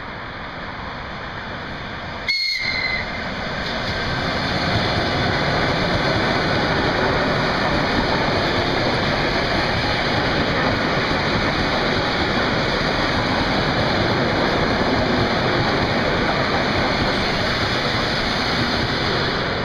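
ET2M electric multiple unit running past at speed. A brief high whistle note sounds about two seconds in. After that comes the steady noise of wheels and cars going by, louder from about four seconds in until the train has passed near the end.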